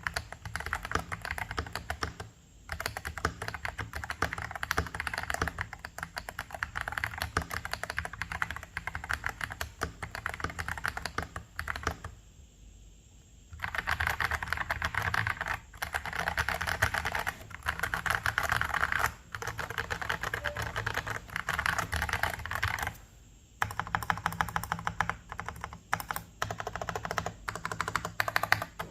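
Fast continuous typing on a mechanical keyboard, a KBD67 Lite R2 with stock Feker Panda tactile switches (a Holy Panda clone) and cherry-profile keycaps: a dense run of key clacks. It breaks off briefly a few times, with one longer pause near the middle.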